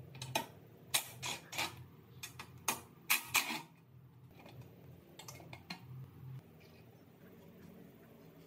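Irregular metal clinks and taps from a socket tool and bolts on a motorcycle's metal fuel-tank mounting, about eight sharp knocks in the first three and a half seconds, then quieter handling sounds as the tank is worked loose.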